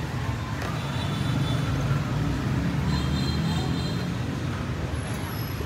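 Steady low rumble of street traffic from the road outside the café.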